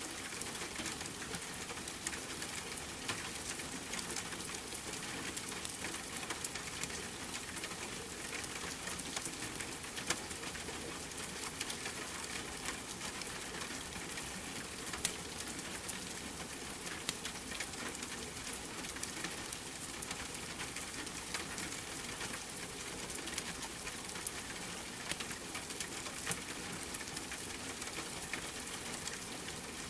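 Steady rain with a wood fire crackling: an even hiss of rain, with irregular sharp crackles and pops from the fire scattered through it.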